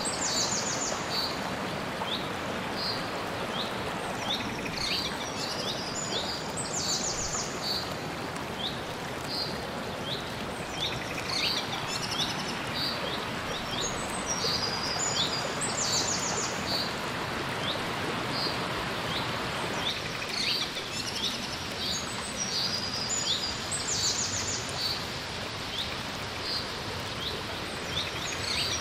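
Small forest stream running over rocks, a steady rush of water, with birds calling over it: high chirps and short quick trills repeated every few seconds.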